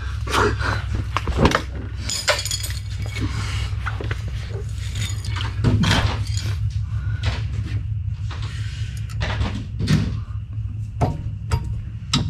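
Irregular knocks and clinks of tools and parts being handled at an open rear axle differential, over a steady low hum.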